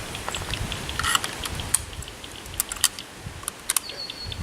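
Irregular light clicks and knocks of rifle gear being handled and set down, with no shot fired.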